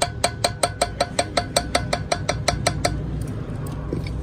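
A fast, even run of about fifteen sharp metallic strikes, about five a second, each with a short ring: a hammer striking steel to knock out a broken truck leaf-spring bolt. The strikes stop about three seconds in.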